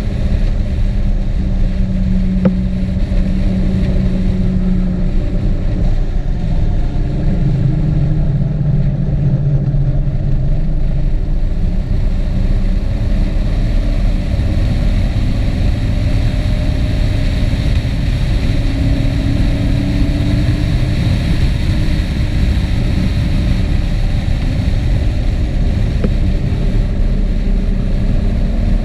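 Moving-vehicle travel noise: a heavy, steady wind rumble on the camera microphone, with an engine hum that slowly rises and falls in pitch.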